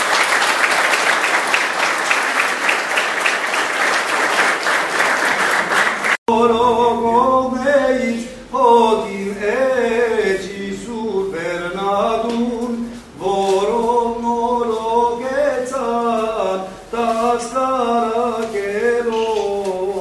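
An audience applauds for about six seconds. After an abrupt cut, Armenian clergy chant a liturgical hymn in long sung notes that bend up and down in pitch, with short breaths between phrases.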